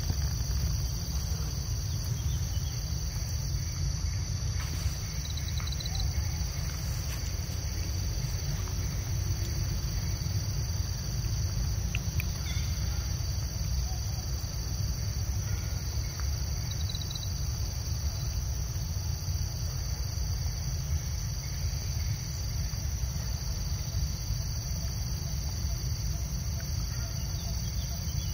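Steady insect chorus, a continuous high-pitched trilling that holds two even tones, over a constant low rumble.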